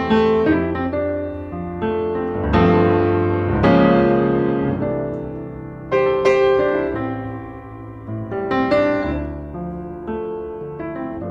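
Background piano music: slow chords struck every second or two, each ringing out and fading.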